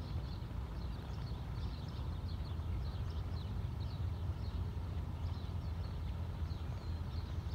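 Faint hoofbeats of a distant galloping racehorse on a dirt track, under a steady low rumble, with birds chirping repeatedly throughout.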